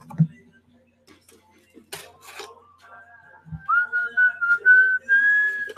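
A person whistling a string of held notes that slide slightly upward and get louder toward the end. Before it come a couple of sharp knocks and a dull thump from cardboard packaging being handled.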